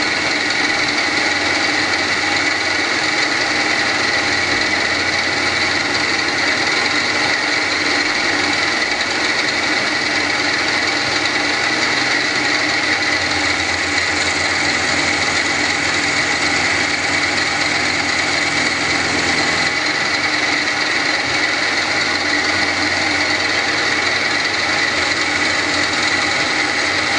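Milling machine spindle running steadily with a constant whine as its end mill cuts a cam lobe into a W-1 drill rod camshaft blank.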